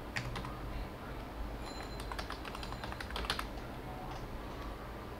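Typing on a computer keyboard: a run of irregular key clicks that stops about three and a half seconds in.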